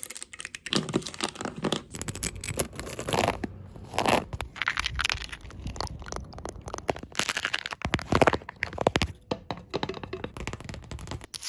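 Fast-cut montage of ASMR trigger sounds: dense tapping and crackly scratching and crinkling on various objects, switching from one sound to the next every second or so.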